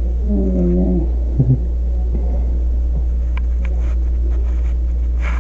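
A steady low hum runs throughout. A brief hummed 'mm' sound comes in the first second, and two soft knocks follow about a second and a half in.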